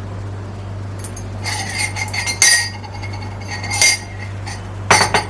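Crockery and cutlery clinking as a cup is set out for coffee, with three sharp knocks that ring briefly.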